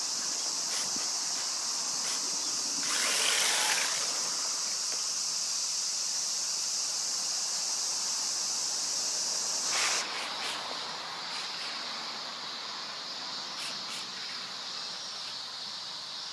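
Steady high-pitched droning of an outdoor insect chorus, with a brief louder rushing noise about three seconds in. After a cut near ten seconds the droning goes on fainter.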